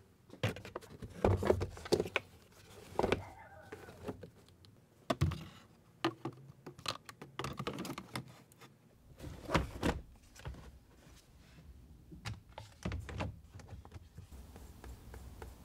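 Plastic center console trim of a Mazda MX-5 being handled and pressed into place, with the leather shift boot fitted around the gear lever: irregular clicks, light knocks and rustling.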